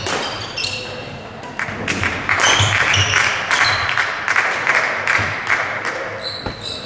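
Badminton doubles rally: shuttlecock struck by rackets with sharp taps, shoes squeaking on the court floor and footfalls as the players move.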